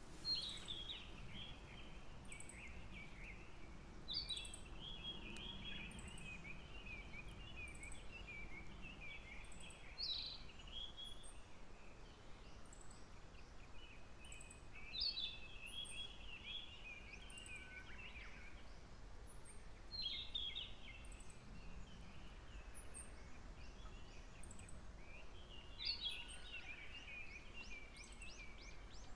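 A songbird singing the same song phrase over and over, about every five seconds: each phrase opens on a high note and runs on in a quick jumble of lower notes for two to three seconds.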